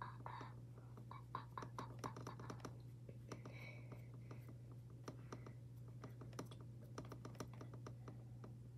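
Faint, irregular light taps and clicks, several a second, from fingertips dabbing concealer onto the skin under the eyes, with a few soft breaths.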